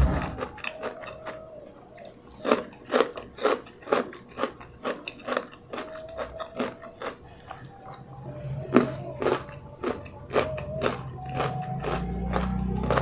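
Close-miked crunching bites and chewing of fresh raw cucumber slices, a run of sharp crisp crunches a few times a second.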